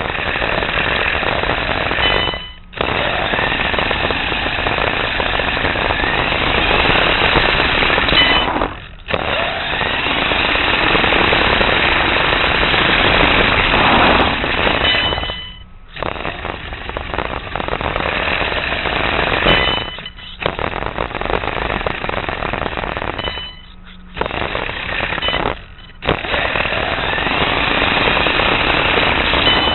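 An RC car driving over coarse asphalt, heard through a camera mounted on its chassis: a loud, dense rattle of drivetrain, tyres and vibration. It drops away briefly about six times, as between throttle bursts.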